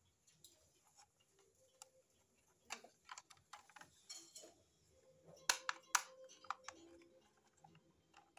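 Light scattered clicks and taps of a clothes iron's plastic housing and wires being handled as the iron is put back together, with two sharper clicks a little past halfway.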